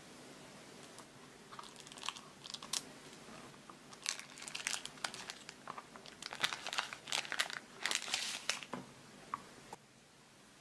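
Thin clear plastic film wrapper crinkling and crackling as hands handle it and peel it back, in an irregular run of crackles that gets louder and busier midway and stops about a second before the end.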